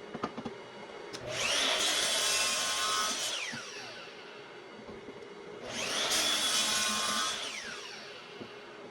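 Miter saw cutting white oak twice: each time the motor runs up, holds for about two seconds through the cut, then winds down with a falling whine as the blade spins down.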